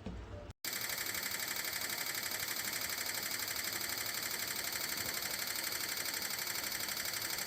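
Portable evaporative air cooler running: a steady mechanical whir with a fast, even pulse, starting abruptly just under a second in after a brief break.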